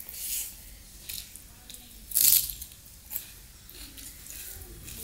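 Close-miked eating: a man chewing a mouthful of chicken curry and rice eaten by hand, with short wet mouth noises and one loud crunch about two seconds in.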